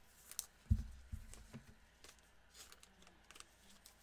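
Gloved hands handling trading cards and a cellophane pack wrapper: a few soft taps, the loudest about a second in, with faint crinkling and rustling.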